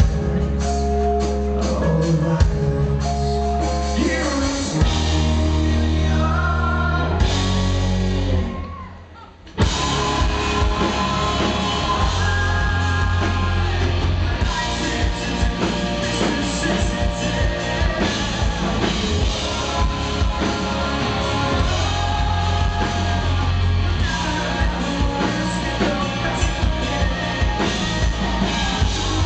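Live rock band with a male lead singer, guitar and drums. About eight and a half seconds in, the band drops out for a moment, then comes back in at full level.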